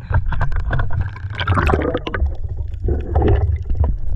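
Water sloshing and gurgling over a camera as it goes from the sea surface to underwater, with many crackly clicks over a low rumble.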